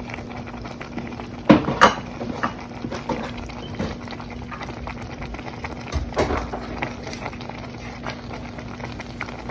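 A few short clatters of kitchen utensils against a pot, two close together near the start and one about six seconds in, over a steady low hum at the stove.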